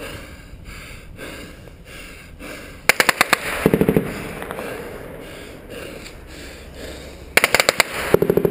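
Three short bursts of rapid automatic machine-gun fire, the first about three seconds in and two close together near the end.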